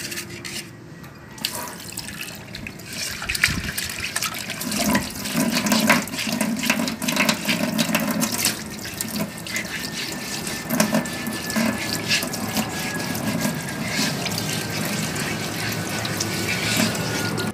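Tap water running into a stainless steel sink while a clay pot is rinsed and scrubbed by hand, with scraping strokes of the scrubbing over the steady running water.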